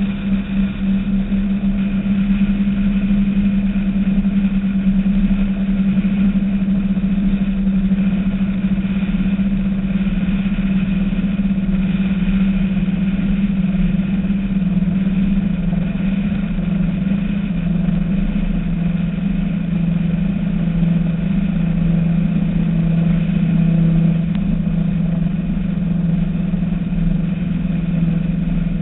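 Skater performance catamaran's engines running at speed, a loud steady drone whose pitch settles a little lower just past the middle.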